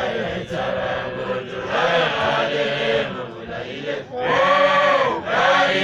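A group of voices chanting in song together, swelling louder about four seconds in.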